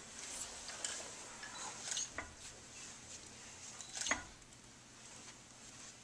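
A few light, sharp taps of a hand on a concrete slab resting on cinder blocks, as the breaker lines up her strike; the loudest tap comes about four seconds in.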